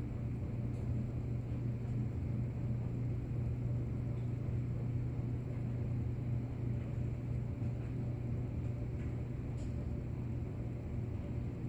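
A steady low hum with rumbling noise beneath it, unchanging throughout.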